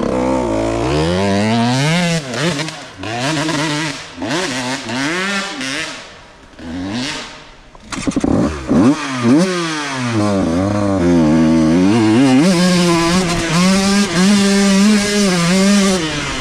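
125cc two-stroke dirt bike engine revving hard, its pitch climbing and falling again and again as the throttle is worked through the gears. The throttle shuts off briefly around six seconds in, then the engine is held wide open at a steady high pitch near the end.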